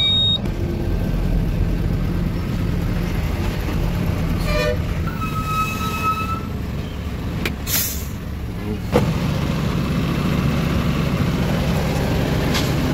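Heavy truck's diesel engine running, heard from inside the cab. A horn sounds with a held tone about five seconds in, and short air-brake hisses come at about eight seconds and near the end.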